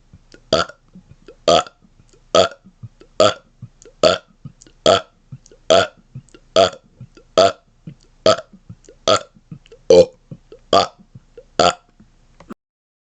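A man burping on purpose in rapid fire: short, separate burps at a steady pace of about one a second, around fourteen in a row, with a brief pause near the end.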